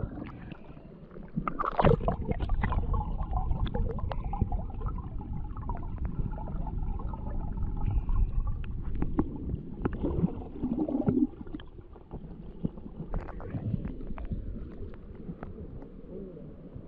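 Water gurgling and sloshing in a stream, with a low rumble and scattered knocks and clicks; it eases about two-thirds of the way through.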